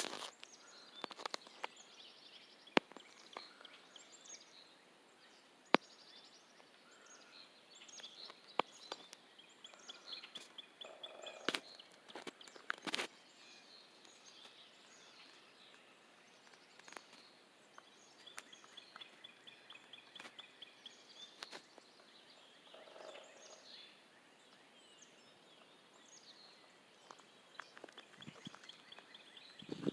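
Morning birdsong: several birds chirping and singing, with repeated rapid trills, and a few sharp clicks among them.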